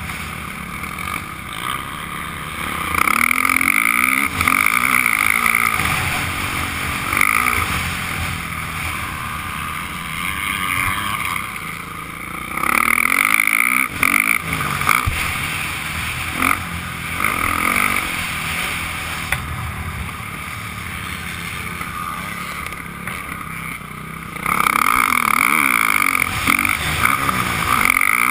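Motocross dirt bike engine heard from the rider's helmet camera, opening up hard and easing off in turn through the lap. It is loudest in several stretches of a couple of seconds and again from about three-quarters of the way through.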